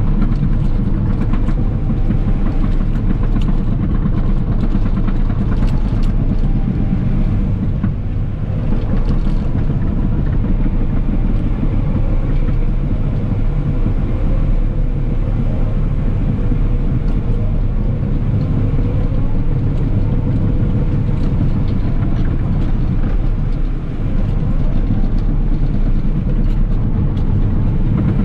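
Caterpillar 963K track loader's C9.3 diesel engine running steadily, heard from the operator's seat, dipping briefly twice.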